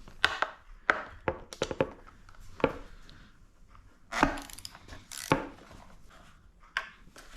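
Hand tools and parts clinking and knocking as bolts are undone: about a dozen sharp, irregular clicks and knocks, the loudest about four and five seconds in.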